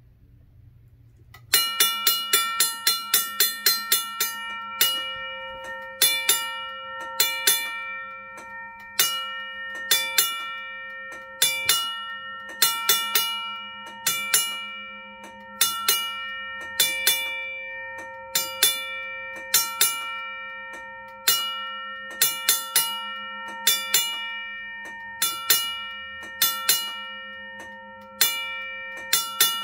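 Safetran mechanical railroad crossing bell ringing through a flasher relay. It starts about a second and a half in with a fast run of strikes, then the relay's on-off switching breaks it into bursts of a few quick strikes a little over once a second, with the gong ringing on between bursts.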